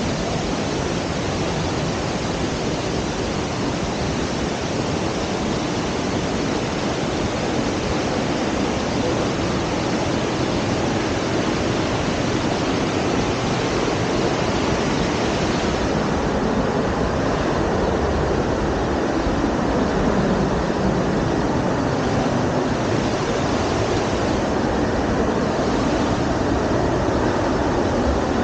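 Waterfall: a steady, loud rush of falling water, with a slight change in tone about halfway through.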